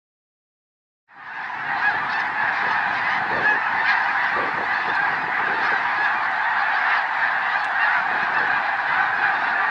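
A large flock of snow geese calling, a dense continuous chorus of many overlapping honks that starts about a second in.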